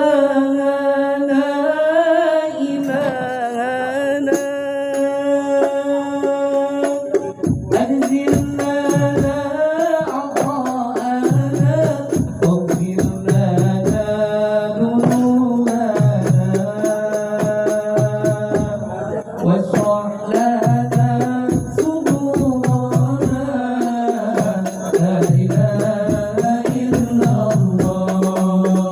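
Sholawat sung by a voice in long, ornamented melodic lines, with hand percussion coming in about seven seconds in and keeping a beat under the singing.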